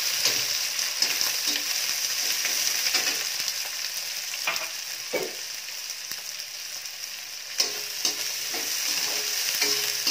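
Freshly added chopped onions sizzling in hot oil in a steel kadai, being sautéed. A metal slotted spatula stirs them, scraping and tapping against the pan with a few sharper scrapes along the way.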